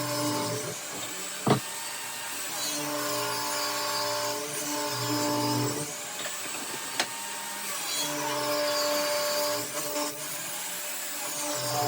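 Power saw ripping boards into 2x2 strips: the motor tone comes and goes in repeated cuts every few seconds. A sharp knock sounds about a second and a half in, and a smaller click near seven seconds.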